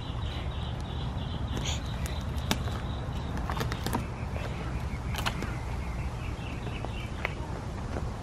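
Wheeled hand truck loaded with a heavy pot of soil rolling over wood-chip mulch and dirt: a steady low rumble with small scattered clicks and crunches.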